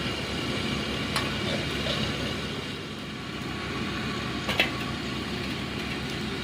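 Komatsu excavator's diesel engine running steadily, with two sharp knocks, about a second in and again near four and a half seconds, the second one the louder.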